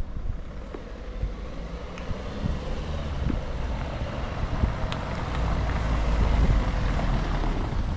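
A motor vehicle passing along the street, its engine rumble and tyre noise swelling to a peak about three-quarters of the way through, then easing off.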